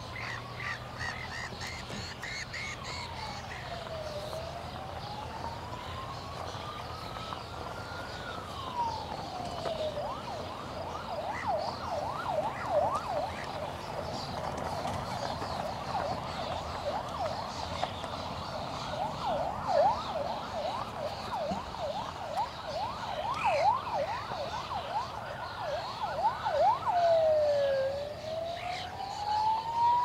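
An emergency vehicle's siren sounding a slow rising and falling wail. About ten seconds in it switches to a fast yelp, and near the end it goes back to the wail.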